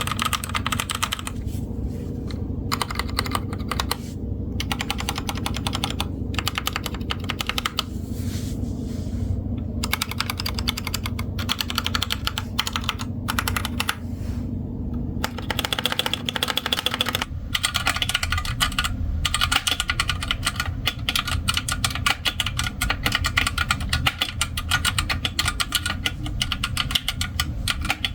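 Typing on a Magegee Star 61 mechanical keyboard with linear red switches: a steady stream of key clicks and clacks, getting faster and denser a little past halfway.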